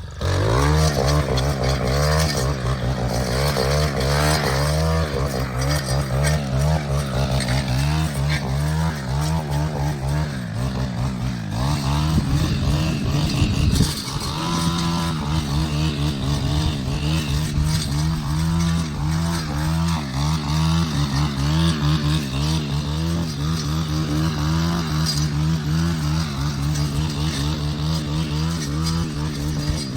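An engine running steadily, starting abruptly, with a brief drop about halfway through before it carries on.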